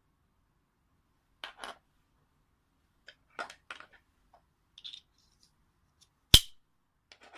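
Plastic side-release buckle parts handled: scattered light clicks and rattles, then one loud, sharp plastic click a little after six seconds in.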